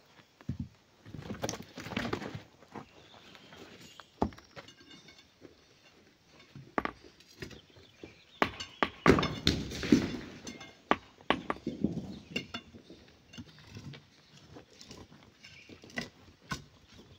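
Hand tools striking rock as it is broken up: irregular sharp metal-on-stone knocks, bunched into a busy run in the middle, with scraping noise from rubble and stone being moved.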